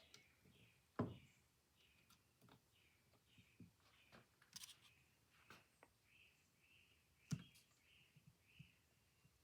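Near silence broken by a few small clicks and taps of metal parts being handled and fitted on a phonograph's tone-arm bracket. The two sharpest clicks come about a second in and again about seven seconds in.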